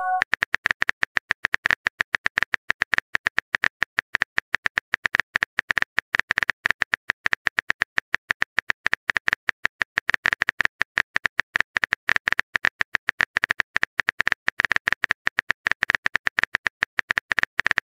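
Phone keyboard typing sound effect: a fast, steady stream of key clicks as a message is typed out.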